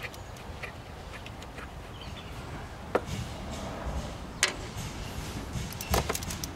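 Sharp metallic clicks of a small socket, extension and ratchet being handled and fitted together: single clicks about three and four and a half seconds in, then a quick cluster of clicks near the end.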